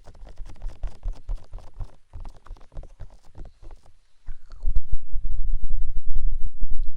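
Ear-cleaning and ear-massage sounds worked directly on a binaural microphone's ear: dense crackling, scratching and rubbing with deep rumbles, growing much louder about halfway through.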